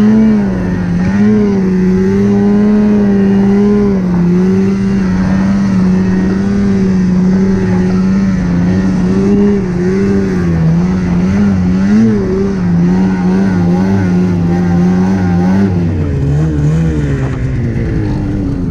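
Snowmobile engine running under way, its pitch rising and falling with the throttle, then dropping lower near the end as the sled slows.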